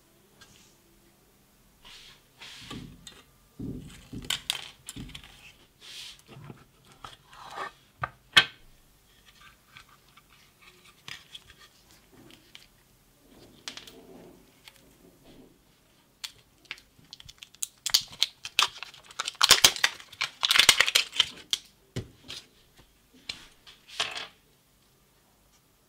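Hands handling a disassembled Black & Decker 12V NiCd battery pack: plastic case parts clicking, knocking and scraping, with a longer spell of loud scratching and rustling about three-quarters of the way through.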